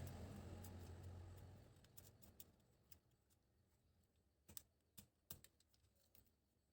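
Faint, scattered clicks and taps of small parts and tools being handled during tablet disassembly, with three sharper clicks about four and a half to five and a half seconds in. A low hum fades out within the first two seconds.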